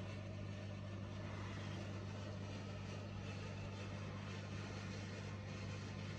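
Steady low hum with a faint even hiss over it.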